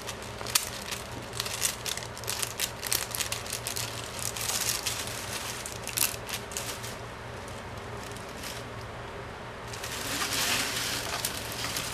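Plastic packing straps being pressed flat along their fold and handled: a run of small crackles and clicks from the stiff plastic strips, thinning out after about seven seconds, with a short rustle near the end as the bundle is moved and bent.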